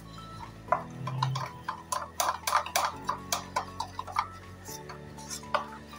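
A spoon clicking and scraping against a bowl as it stirs a thick yogurt-and-spice marinade, in quick irregular taps that are busiest in the first half. Soft background music of sustained chords plays underneath.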